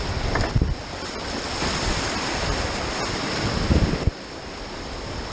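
Rushing whitewater of river rapids, with wind buffeting the microphone. There are heavier low surges about half a second in and again near four seconds.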